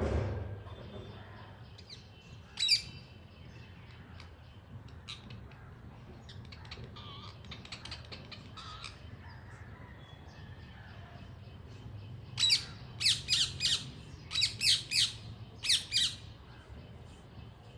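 A parrot squawking: one sharp call about three seconds in, softer calls in the middle, then a run of about nine sharp squawks in quick clusters near the end, over a low steady hum.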